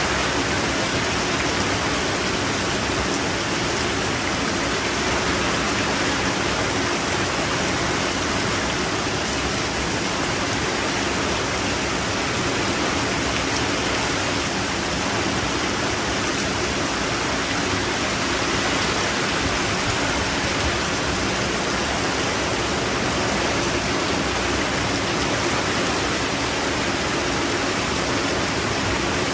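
Rain falling steadily, an even hiss with no single drops or pauses standing out.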